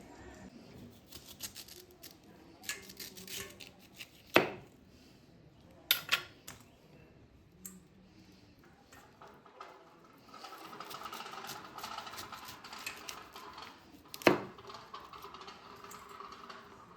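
Dishes and utensils clinking and knocking, with scattered small clicks and a few sharp knocks, the loudest about four seconds in and again near fourteen seconds. A steadier hiss runs underneath in the second half.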